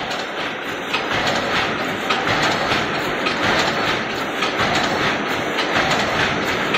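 Automatic wire mesh welding machine running and welding fence mesh: a steady, rapid, rhythmic mechanical clatter.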